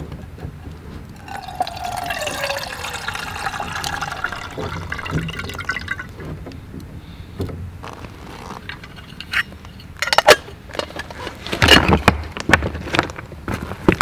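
Liquid poured into a container for about five seconds, its pitch gliding as it fills. Near the end come a series of sharp knocks and clatters.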